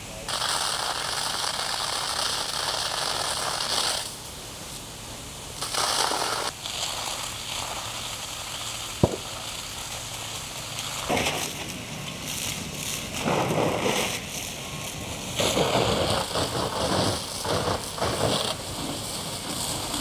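Large wood-frame building fire: burning timbers crackling and popping over a steady rush of flame. There is one sharp snap about nine seconds in and a dense run of crackles near the end.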